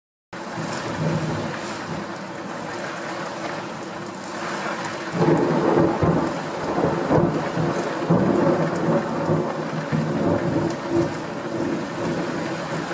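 Heavy downpour with thunder rumbling through it, the thunder swelling about five seconds in and rolling on in several peaks.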